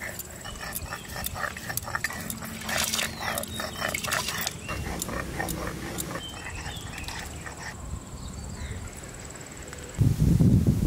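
A rapid series of short animal calls for the first few seconds over a steady high insect buzz. About ten seconds in a loud, rough rubbing begins: spices ground to a paste on a wooden board with a hand-held grinding roller.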